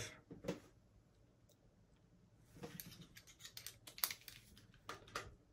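Faint metal clicks and light rattling as a hex-shank Torx bit is handled and fitted into a screwdriver handle, with a sharper click about four seconds in.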